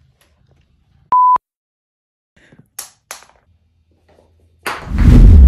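A single short electronic beep, one steady pure tone lasting about a quarter of a second, about a second in; two sharp clicks follow. Near the end a loud, noisy burst with a deep rumble starts suddenly and is the loudest sound.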